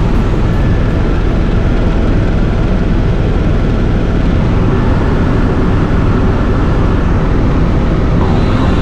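Helicopter cabin noise in flight: the turbine engine and main rotor making a loud, steady drone heard from inside the cabin.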